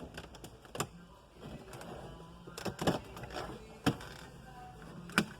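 Plastic car interior trim being pried loose with a teflon spatula: a handful of sharp clicks and knocks spread across a few seconds.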